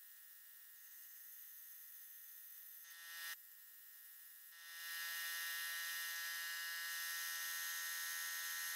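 Compressed-air-driven vacuum brake bleeder hissing with a buzzing tone as its trigger is worked, drawing vacuum to siphon old power steering fluid out of the reservoir. There is a short burst about three seconds in, then a steady run from about four and a half seconds on.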